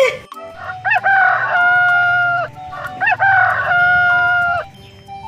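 A rooster crowing twice, each crow rising sharply and then holding a long steady note.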